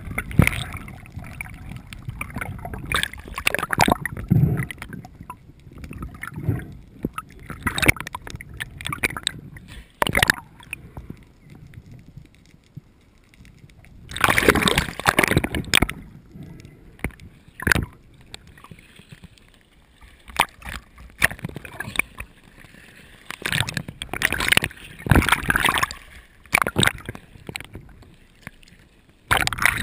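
Water gurgling and sloshing against a GoPro's underwater housing in irregular bursts as the camera moves through the water, with a few sharp knocks.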